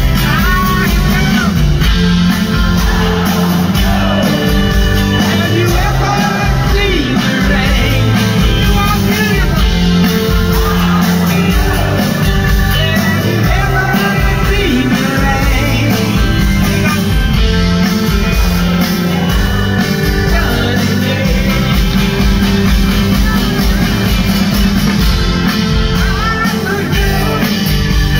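Live rock band playing through a concert PA: a male lead vocal sings over strummed acoustic guitars, electric guitar, bass and drums.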